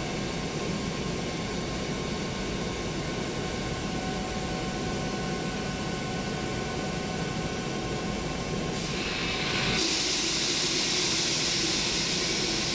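Air compressor running, a steady machine hum with faint whining tones. About nine seconds in, a hiss of escaping air starts and gets louder a second later.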